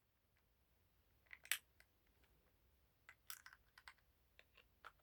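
A few faint, short plastic clicks and taps as the mechanical keyboard is handled: one sharper click about a second and a half in, and a few lighter ones between three and four seconds in.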